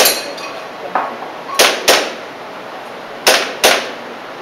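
Airsoft pistol firing: a sharp crack at the start, a fainter one about a second in, then two quick double shots, each pair about a third of a second apart.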